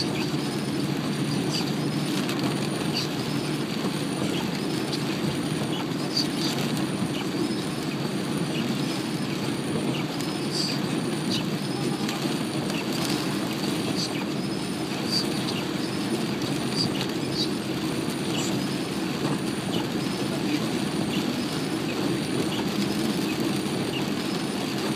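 Rain hitting a car's roof and windshield, heard inside the cabin while driving, over steady road and engine noise, with many scattered drop ticks.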